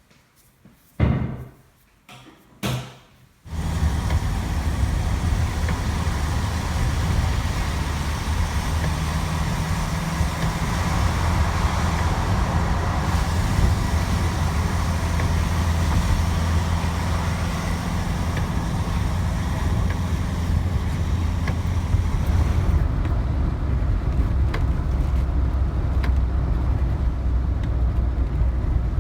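Two short knocks, then a car on the road: a steady low rumble of engine and tyre noise that starts abruptly a few seconds in.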